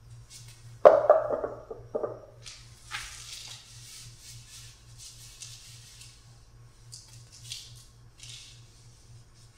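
Large calligraphy brush loaded with ink striking and dragging across paper: a sharp slap about a second in, a smaller one a second later, then a few seconds of rough brushing hiss and several shorter swishes. A low steady hum runs underneath.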